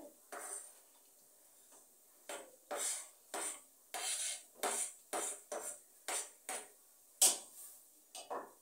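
A kitchen utensil scraping and tapping chopped okra off a plastic chopping board into a metal soup pot. There are about a dozen quick strokes, roughly two a second, starting about two seconds in, with one sharper knock near the end.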